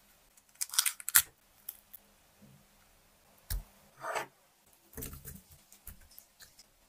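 Scattered clicks, rustles and soft knocks of raw shrimp being handled in bowls and slid from a ceramic dish into a glass blender jug, with a sharp pair of clicks about a second in and a cluster of knocks about five seconds in.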